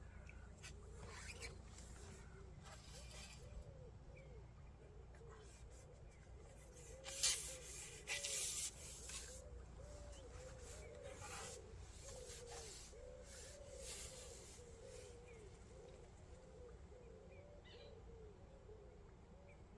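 Pigeons or doves cooing over and over, a steady run of calls. There is a brief rustle and a sharp knock about seven seconds in.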